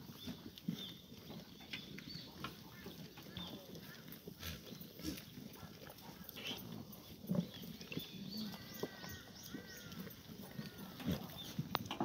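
Black goats in a pen, with scattered short knocks and clicks from the animals moving about and a few faint calls now and then.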